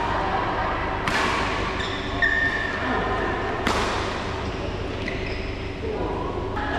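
Badminton rackets striking the shuttlecock in a rally, two sharp hits about two and a half seconds apart that ring through the large hall. Short shoe squeaks on the court mat and faint voices sit over a steady hum.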